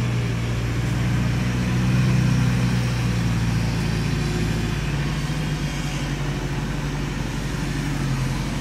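Engine of an off-road safari vehicle running steadily as it drives along a dirt jungle track, its note shifting slightly in pitch a few seconds in.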